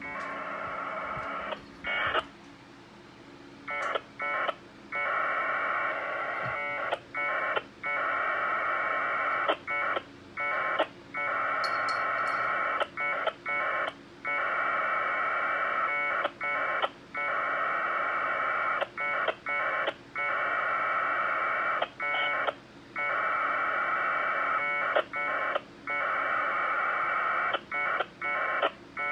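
1200-baud Bell 202 AX.25 packet data (AFSK tones) heard over Motorola CDM1500 UHF radios, with a Winlink email being downloaded. It comes in bursts several seconds long, broken by short breaks and a few brief bursts where the stations turn over and acknowledge.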